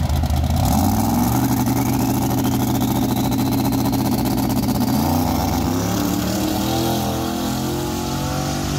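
Drag-racing engine running loud at the starting line, then launching down the track about five seconds in, its pitch stepping up and down as the vehicle pulls away.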